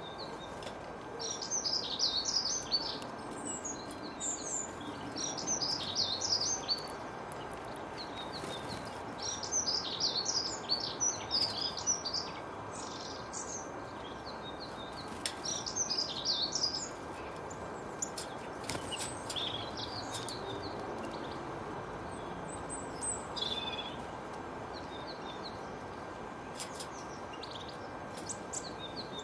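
Small songbirds chirping and twittering in repeated bursts of a second or two, busiest in the first half and sparser later, over a steady background hiss with a faint constant high tone.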